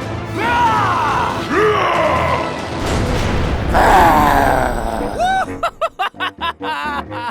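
Background music with comic sound effects: a few sliding, groan-like tones that rise and fall, then near the end a quick run of short warbling chirps.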